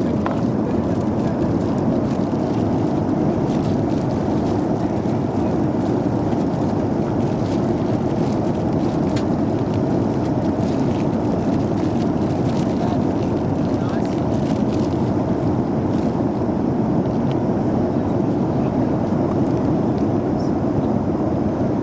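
Steady cabin noise of a Boeing 737-400 airliner in flight: an even rushing drone of engines and airflow, with a few faint clicks.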